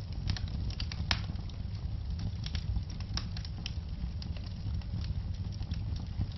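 Fireplace fire crackling: irregular sharp pops and snaps over a steady low rumble, with the loudest pops about a second in and about three seconds in.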